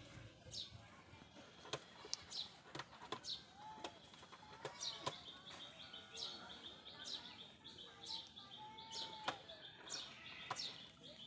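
Small birds chirping in short, high calls that fall in pitch, about one a second, with a rapid trilling call through the second half. A few sharp clicks and some lower curved whistled notes come between the calls.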